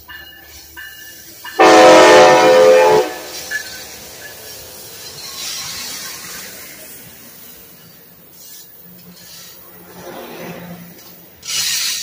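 Amtrak California Siemens Charger passenger locomotive sounding one loud, chord-like horn blast of about a second and a half, then the steady rumble and hiss of its bilevel passenger cars rolling past. A bell pings about twice a second before the horn, and a short burst of hiss comes near the end.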